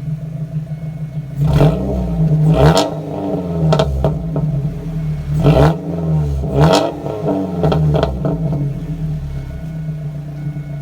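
2000 Ford Focus ZX3's 2.0-litre four-cylinder engine idling through a newly fitted aftermarket cat-back exhaust and revved up and back down, with two big blips about one and a half and five and a half seconds in and smaller ones after each, before settling back to idle.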